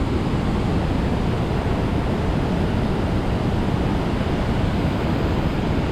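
Steady, loud rush of a waterfall, an even wash of falling water with no breaks.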